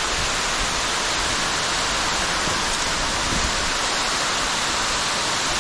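Steady rushing of water from a tall underground waterfall, with its spray falling heavily like rain.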